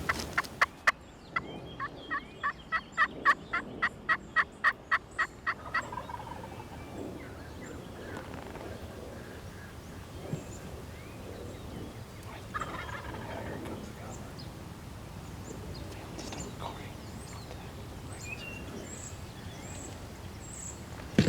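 Wild turkey calling: a rapid, evenly spaced run of about four calls a second for roughly six seconds. After it comes a fainter turkey call, with small birds chirping in the background.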